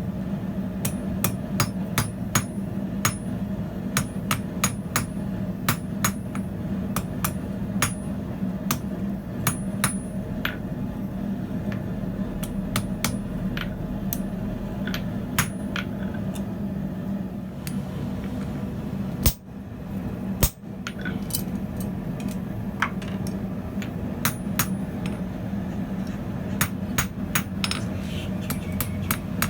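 Blacksmith's hammer striking hot steel on an anvil: a run of sharp, ringing blows, about one or two a second, over a steady low hum. The blows break off twice, briefly, a little past the middle.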